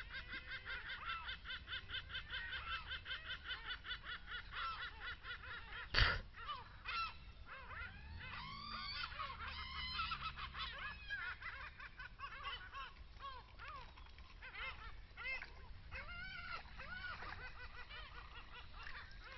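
A chorus of animal calls, quick cackling calls repeated about four to five times a second, then scattered rising-and-falling calls. There is a sharp knock about six seconds in.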